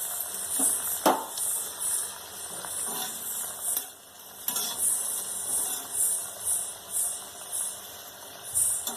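Nimki (flour dough strips) deep-frying in hot oil, with a steady sizzle that swells and fades. A metal utensil stirring them knocks against the pan now and then, sharpest about a second in.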